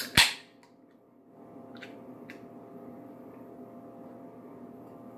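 An aluminium beer can of coffee stout cracked open by its pull tab: a sharp pop with a short hiss right at the start. Two light clicks follow about two seconds in, over a steady low hum.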